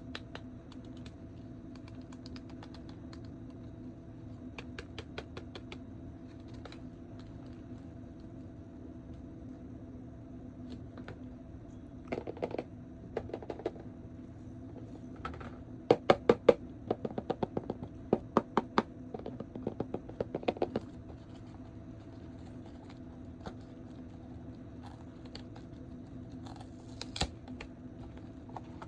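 Light plastic clicks and taps from action figures and their packaging being handled, coming in quick clusters over a steady low hum.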